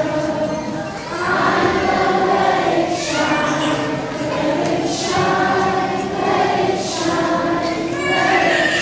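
A choir singing held notes in phrases about two seconds long, with sung 's' sounds between the phrases.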